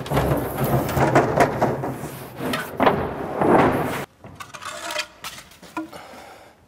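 Large wooden panels and a box being shoved and scraped across a concrete floor, a loud grinding clatter that stops abruptly about four seconds in, followed by a few lighter knocks as the pieces settle.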